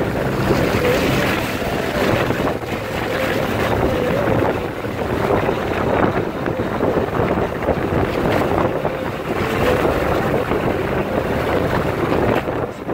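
Steady rushing of wind on the microphone from a moving vehicle, with the vehicle's running noise and a faint steady hum underneath.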